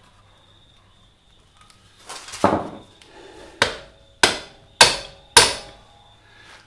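Hammer tapping the rear axle bolt of a Honda CB125E through the wheel hub to seat it: five sharp metallic strikes with a short ring, the first about two and a half seconds in, then coming a little faster.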